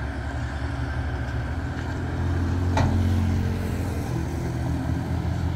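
Heavy tractor-trailer truck engine running under load on a steep climb, a steady low drone that grows louder and a little higher about two seconds in, with one short click near the middle.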